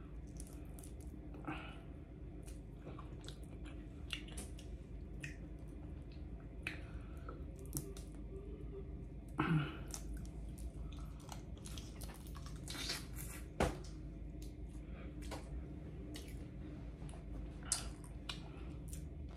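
Boiled crawfish being peeled by hand and eaten close to the microphone: shells cracking and crackling, wet squishing and chewing, in short irregular bursts with a few sharper cracks.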